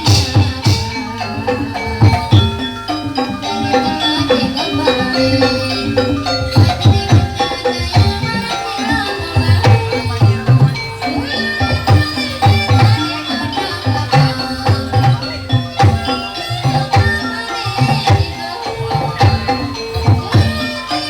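Gamelan-style accompaniment for a kuda lumping trance dance: hand-drum beats under ringing, pitched metal tones, with a rattling percussion layer, played continuously in a steady rhythm.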